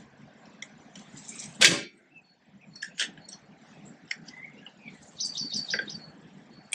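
Sharp metallic clicks and clinks of brake shoes and their return springs being worked by hand onto the backing plate of a 1955 Fordson Major's rear brake, the loudest clink about two seconds in. A brief, rapid run of high ticks comes about five seconds in.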